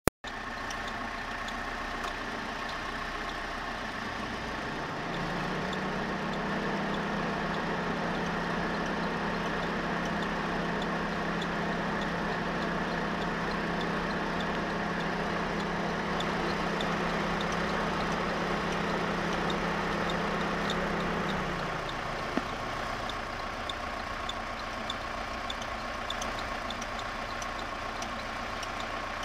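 Renault F4R four-cylinder petrol engine running steadily, with faint regular high ticks; about five seconds in a steady low hum rises in, holds, and drops away again after about twenty-one seconds. The owner finds it a strange noise and does not know its cause.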